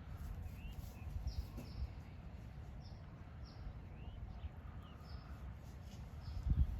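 Birds chirping: short, high peeps, slightly falling, repeated irregularly about twice a second over a low rumble, with a low thump near the end.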